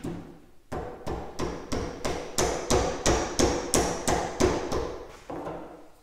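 A mallet tapping the end of a seal puller in rapid, even blows, about three a second, starting about a second in and tailing off near the end. The blows drive the puller's tip under the outer seal of a hydraulic cylinder gland clamped in a vise, to pry the old seal out.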